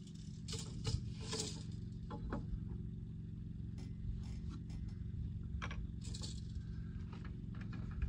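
Scattered light clicks, taps and scrapes of a lumber board being handled and marked with a pencil, over a steady low hum.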